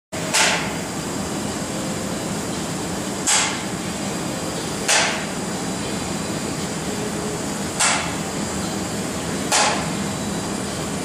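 Wind tunnel fan and airflow running steadily with a low hum, broken by five short, loud bursts of noise at uneven intervals.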